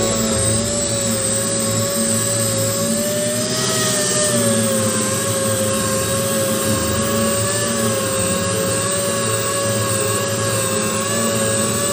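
Small pneumatic orbital sander running with a steady whine. Its pitch wavers slightly as it is pressed and moved over the tanker's painted body to sand down a repaired dent before repainting.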